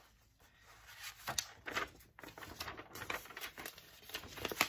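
Sheets of printer paper rustling and crinkling as they are handled and pulled apart, in irregular crackles and scrapes that start about a second in.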